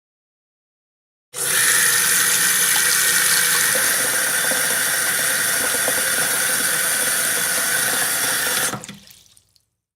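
Water running steadily from a tap into a sink, turned on sharply about a second in and shut off near the end.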